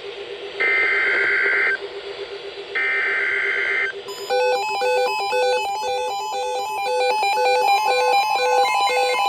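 EAS SAME header data bursts, two harsh buzzing digital bursts of about a second each. About four seconds in they give way to a repeating electronic beeping alert tone, with a steady high tone joining near the end.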